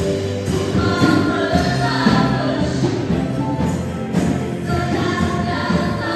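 Live church praise music: a group of women singing a worship song together, backed by keyboard, guitar and bass, with tambourines jingling as dancers shake them.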